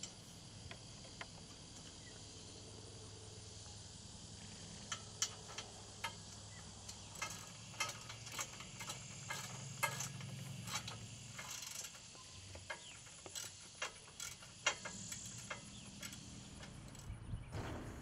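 Ratchet wrench clicking and small metal clinks as bolts are tightened on the steel frame of a hay feeder, in irregular runs of sharp clicks through the middle of the stretch.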